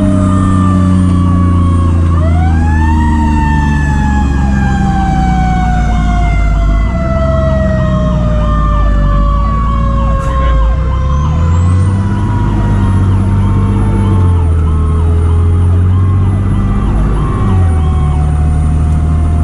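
Fire truck sirens running: one siren tone winds up sharply about two seconds in, then slowly falls in pitch, while a second siren cycles rapidly and repeatedly, over the truck's engine and road noise.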